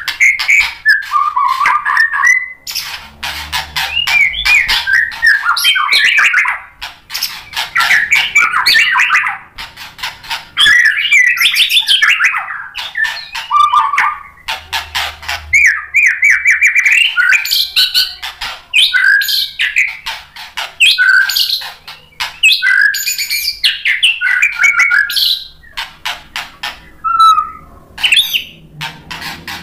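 White-rumped shama singing: loud, varied phrases of whistles, fast trills and harsh chattering notes, each a few seconds long with short pauses between.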